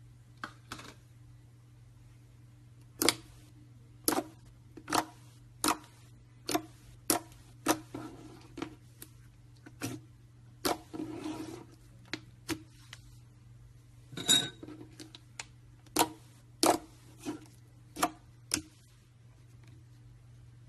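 Repeated sharp taps and clinks of containers and utensils being handled, about one a second, over a steady low hum. There is a short stretch of rustling, scraping noise about ten seconds in.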